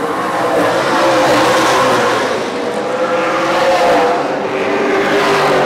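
Super 6 late model race cars running at speed around the track, their engine note swelling and dropping in pitch as cars go by, about three passes.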